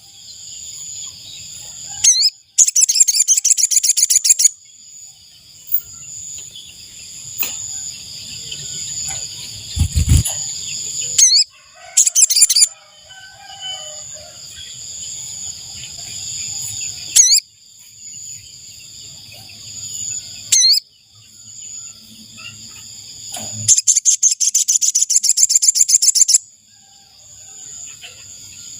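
Sogon (sogok ontong) bird calls used as a trapping lure: three loud, rapid high trills, with short sharp single notes between them. A steady high-pitched ringing, like insects, runs underneath.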